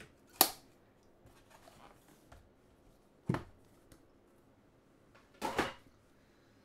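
Handling knocks of a trading-card box being opened and its small inner box set down on a table mat: a sharp knock about half a second in, another a little after three seconds, and a longer doubled knock near the end.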